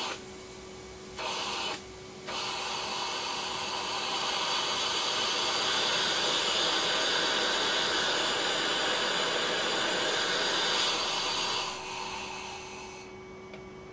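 Air hissing as a vacuum cleaner draws it through a brass ball valve and copper inlet pipe. There are two short bursts as the valve is briefly cracked open, then a long rush that builds, holds for several seconds and dies away near the end as the valve is shut.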